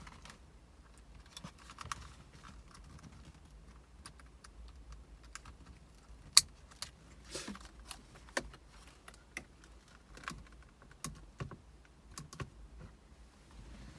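Scattered small clicks and taps of hands handling plastic trim and wire connectors, with one sharp click about six seconds in.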